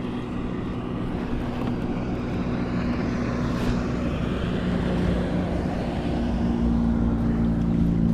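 A motor engine drones steadily and grows gradually louder, its pitch shifting slightly.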